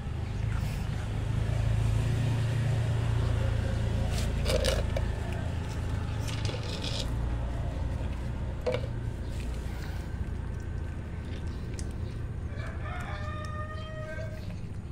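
Cats eating dry kibble off a concrete floor, with a few sharp crunches standing out, over a steady low rumble. Near the end comes a drawn-out animal call of about two seconds, a held pitched tone.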